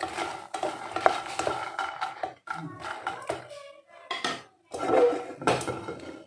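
A spatula stirring and scraping fox nuts (makhana) being roasted in ghee in a nonstick pan, with light clicks and knocks of the spatula on the pan. The stirring breaks off after about two and a half seconds, followed by a few louder bursts of scraping and rattling as the pan is moved by its handle.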